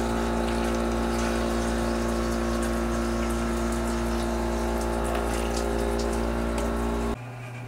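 Water running from the spout of a TouchFree ice-and-water dispenser into a foam cup, over a steady electric hum from the machine's water supply. Hum and flow cut off suddenly about seven seconds in.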